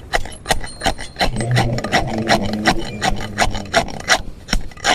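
Rasp filing a horse's hoof in quick repeated strokes, about three a second.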